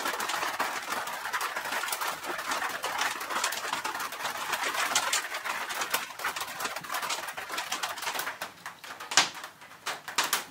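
Rain falling on an uninsulated tin lean-to roof: a dense, steady patter that thins out about eight seconds in. A few sharp clicks near the end.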